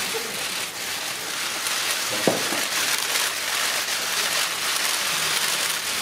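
Many press cameras' shutters clicking continuously and overlapping into a dense patter of clicks. A single louder knock comes a little over two seconds in.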